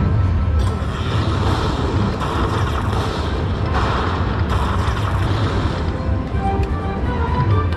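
Lightning Link slot machine playing its bonus-win music and jingles as it counts up the coin prizes of a hold-and-spin feature, over the steady hum of a casino floor. Short beeping tones come near the end.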